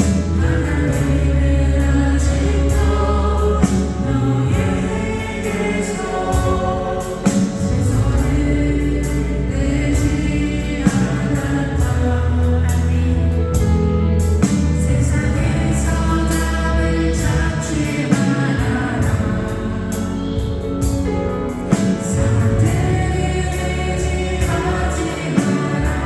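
Christian worship music: a choir singing a praise song over a full band with a strong steady bass and regular cymbal strokes.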